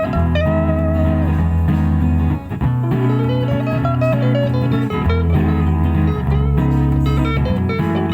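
Live guitar music in an instrumental break between sung lines: chords change every second or so over sustained low notes, and a melody line rises and falls in the middle.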